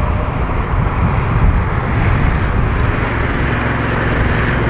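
Steady low rumble and roar of aircraft noise on an airfield apron, with no distinct events.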